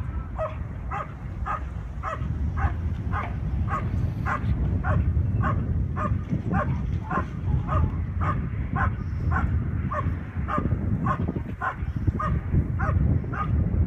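Protection dog barking steadily and rhythmically at the trial helper, about two barks a second, over a low steady rumble.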